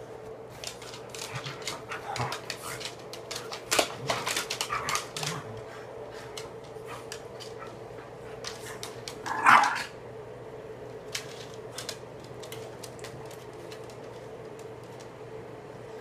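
Dog moving about with a flurry of quick clicks and knocks over the first few seconds, then one loud bark about nine and a half seconds in. A steady hum runs underneath.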